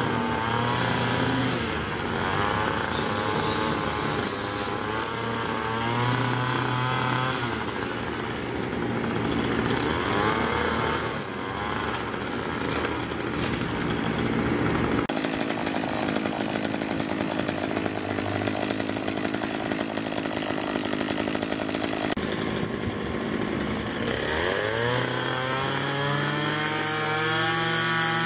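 Gas string trimmer's two-stroke engine running and cutting grass, revving up and down as the throttle is worked. Near the end the engine revs up again from a lower speed.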